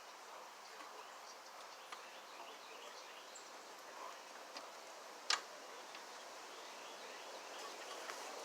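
Faint outdoor background noise with a few light clicks, and one sharper click about five seconds in.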